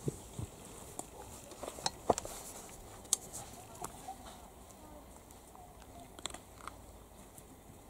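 Italian greyhound puppies at play: scattered light taps and knocks, the loudest about two and three seconds in, with a few faint, short whimpers.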